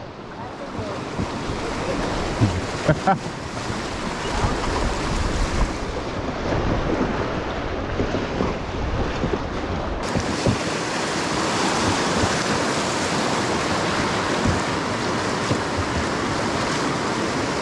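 Fast, high river water rushing and churning through riffles past a small inflatable raft, with wind on the microphone. A couple of brief knocks about three seconds in.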